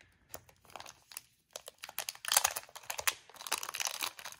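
Clear plastic resealable bag crinkling as fingers pull it open: a few light ticks at first, then dense crinkling from about a second and a half in.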